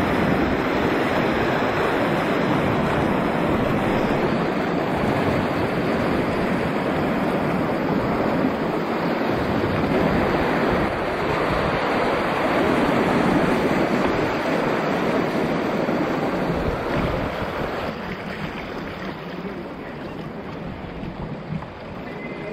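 Rushing whitewater of a river rapid around a kayak, with wind buffeting the microphone: a loud, steady rush that eases in the last few seconds as the boat reaches calm water.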